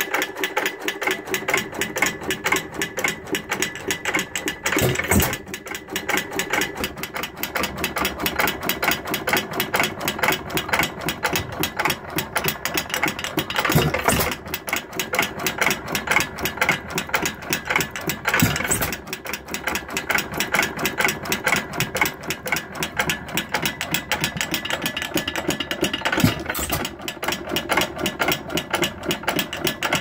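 A 105-year-old Woodpecker hit-and-miss engine running: a fast, even clatter from its valve gear and governor as the flywheels coast, broken every several seconds by a single louder firing stroke when the governor lets it fire.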